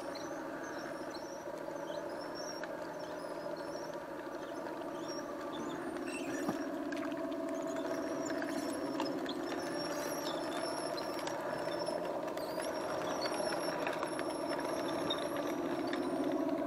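Radio-controlled model tanks driving, making a steady mechanical whirring that grows louder about six seconds in as they come closer.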